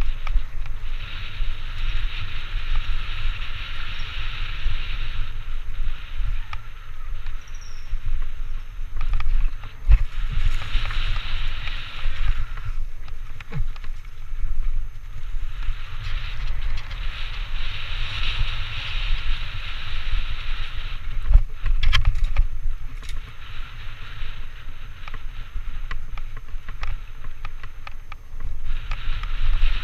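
Mountain bike ridden fast along a singletrack covered in dry leaves, heard from a camera on the bike or rider: tyres hissing through the leaves in stretches, the bike knocking and rattling over bumps, and low wind buffeting the microphone.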